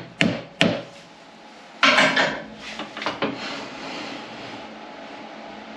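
Two last sharp taps driving a lathe centre into the end grain of a square walnut blank. About two seconds in comes a louder clatter followed by a few clicks as the parts are handled.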